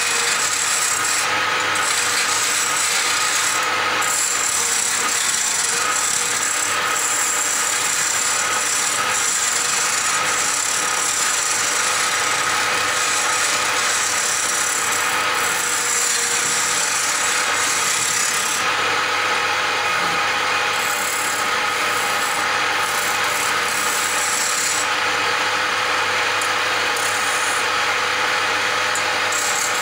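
Wood lathe turning a wooden blank while a hand-held cutting tool scrapes along it: a steady rasping scrape of steel on the spinning wood over the steady hum of the lathe's motor. The scraping eases off briefly a couple of times in the second half.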